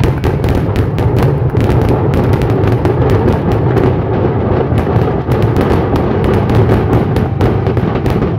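Fireworks barrage: a rapid, unbroken string of loud bangs and crackles, several a second, over a constant low rumble.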